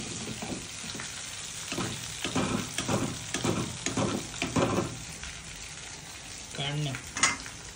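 Chicken tikka pieces sizzling as they deep-fry in hot oil in a kadai, with a metal spoon scraping and knocking against the pan as pieces are lifted out, several strokes between about two and five seconds in.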